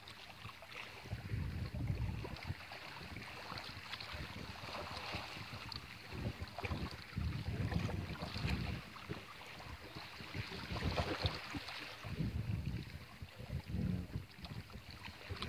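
Wind buffeting the microphone in irregular low gusts, over a steady hiss of outdoor background noise.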